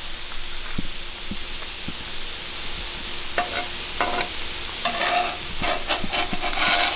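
Striped bass fillets sizzling steadily as they fry in a hot pan, with scattered light clicks that come more often in the second half.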